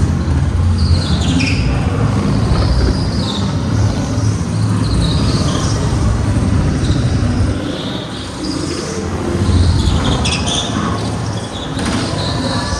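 Onboard sound of a go-kart at racing speed: a steady low rumble from the kart and its tyres on the smooth floor. Short high tyre squeals slide up and down as the kart is pushed through corners, a few times, clearest about a second in and again near the end.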